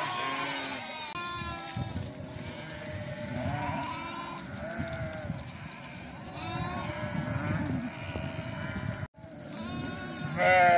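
A flock of sheep and lambs bleating, many overlapping calls one after another, with one louder bleat near the end.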